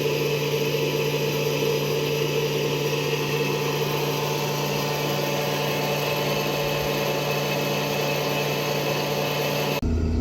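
Large engine-driven farm machinery running steadily at constant speed, with an even whine over a steady engine note. Just before the end it cuts abruptly to a deeper, lower rumble.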